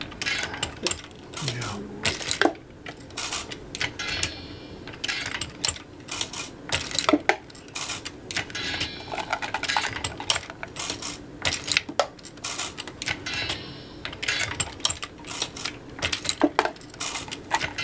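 Lee Loadmaster progressive reloading press being cycled steadily: a rapid run of metallic clacks and clinks as the ram strokes, the shell plate indexes and brass cases and cartridges clink against each other.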